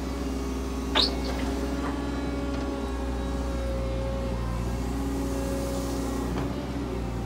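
Cat 315D excavator's diesel engine running steadily while the hydraulics work the boom and tiltrotator bucket. A brief high squeal comes about a second in.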